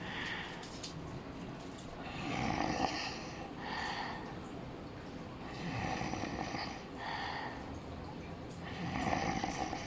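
Loud snoring in sleep: three snores about three seconds apart, each a longer breath followed by a shorter one.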